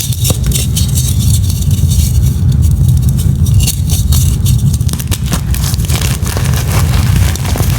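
Blocks of gym chalk crushed close to the microphone: a dense run of crisp, irregular crunches and crackles over a steady low rumble.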